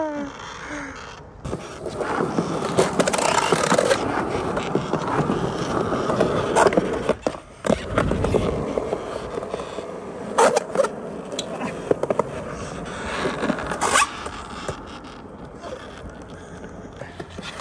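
Skateboard wheels rolling and scraping on smooth concrete during flatground tricks, with several sharp clacks of the board hitting the ground, about six and a half, ten and a half and fourteen seconds in.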